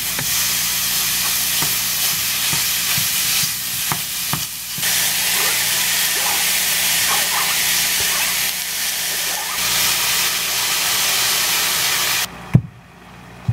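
Raw lean ground beef and chopped onion sizzling in a hot frying pan, with a spatula stirring and a few light taps on the pan. The sizzle cuts off suddenly near the end, followed by one sharp knock.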